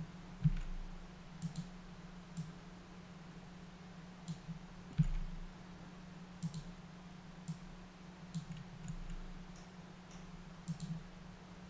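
Computer mouse clicking at irregular intervals, a dozen or so sharp clicks, some in quick pairs, over a faint steady low hum.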